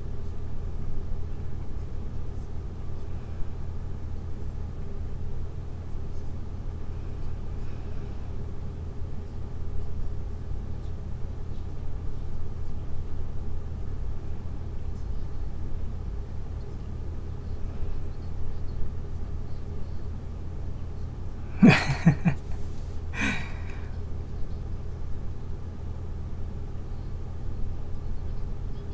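Steady low hum of room noise, with two brief sounds close together about three quarters of the way through, the first with a sliding low pitch.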